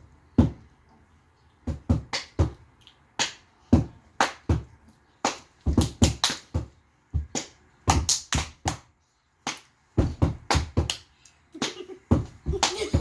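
A quick, uneven run of sharp thumps and smacks from a child stomping and stepping, roughly two a second, with a short pause a little past the middle.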